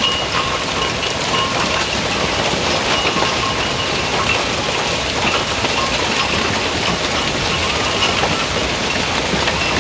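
Heavy hail falling steadily: a dense, continuous clatter of many small impacts as hailstones splash into the water of an above-ground pool and strike its frame and liner.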